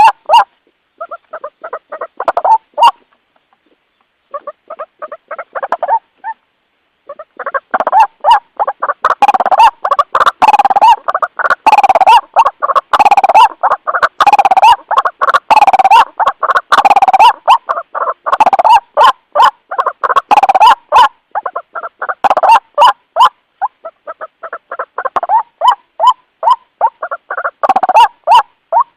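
White-breasted waterhen (ruak-ruak) calling to others of its kind, as used to lure them: loud, rapid series of repeated notes, broken by two short pauses in the first seven seconds, then running on almost without a break.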